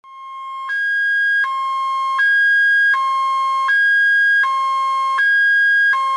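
Electronic two-tone hi-lo alarm tone of a made-up emergency alert, switching between a lower and a higher pitch about every three quarters of a second. It fades in over the first second, then holds loud and steady.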